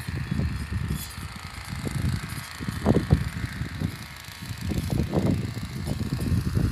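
Wind buffeting the microphone: an uneven low rumble that surges in gusts, over a faint steady hiss.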